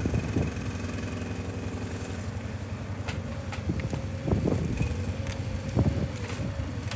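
Engine of an ATV timber-trailer rig running steadily while its hydraulic log crane lowers a log onto a woodpile. Wooden knocks sound about four and six seconds in as the log settles on the pile.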